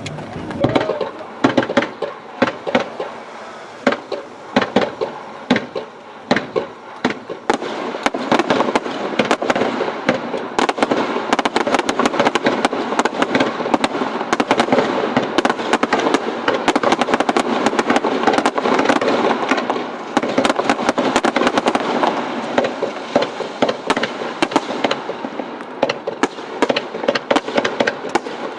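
Fireworks display: a barrage of sharp bangs and crackling, fairly spaced at first and thickening from about eight seconds in into a near-continuous crackle, thinning again near the end.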